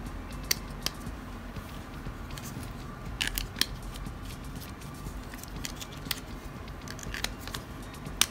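Small, sharp clicks and taps of hard plastic as AA batteries are pressed into the battery bay of a Tamiya Mini 4WD AR chassis. There are about seven, spread out, with a louder pair about three seconds in.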